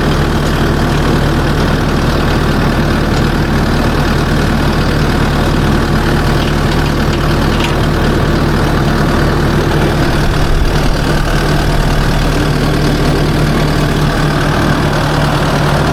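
Kubota SVL75-2 compact track loader's diesel engine idling steadily, warming up.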